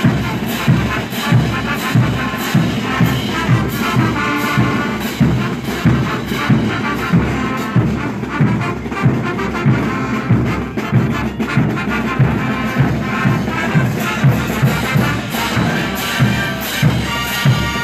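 Mexican banda music: a brass band with trumpets and trombones over a low bass line and a steady drum beat of about two strokes a second.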